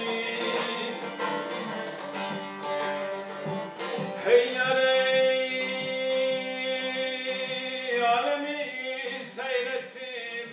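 A song: a voice singing long, held notes over plucked guitar, one note held for several seconds in the middle.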